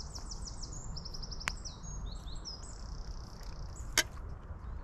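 Small songbirds singing high, rapid trills and runs of quick repeated notes, over a steady low background rumble. Two sharp clicks cut through, the louder one about four seconds in.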